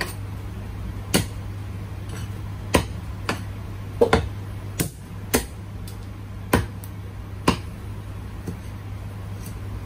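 Cleaver chopping on a chopping block: about nine sharp strokes at uneven spacing, two of them close together about four seconds in, over a steady low hum.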